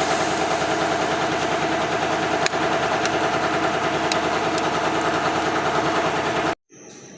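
A small motorized tool running steadily at full speed with a fast, even rhythm, then stopping abruptly near the end.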